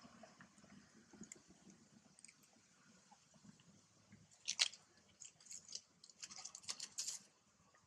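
Faint, quiet crackling and rustling: one sharp crackle about halfway through, then a quick run of short crackles before it goes quiet near the end.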